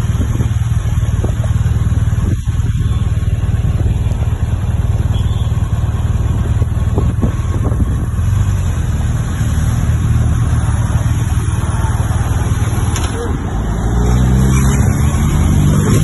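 Road traffic as a police-escorted convoy drives past: engines and tyres of cars, a van and motorcycles. Near the end a police motorcycle passes close by, its engine rising in pitch and getting louder.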